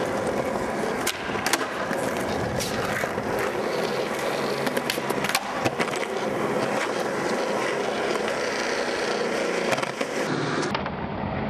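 Skateboard wheels rolling on a concrete garage floor, broken by several sharp clacks of the board popping, striking and grinding a concrete curb and landing.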